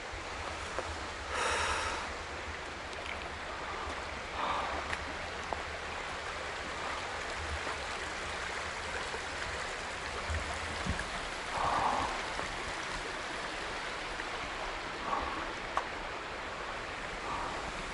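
Steady rushing of flowing water, like a stream, with a few short calls on top, the clearest about a second and a half in.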